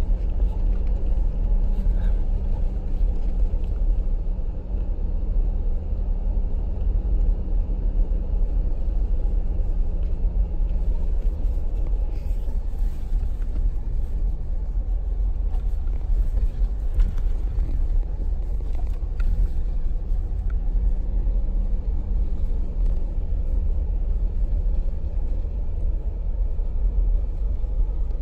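Mercedes G550 driving slowly over a snowy dirt track, heard from inside the cabin: a steady low rumble of the V8 engine and tyres, with a faint engine hum that fades out and returns, and a few light clicks and rattles partway through.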